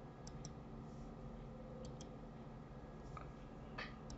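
Computer mouse left button clicking in a few quick pairs (double clicks) near the start, about two seconds in and near the end, faint over a low steady hum.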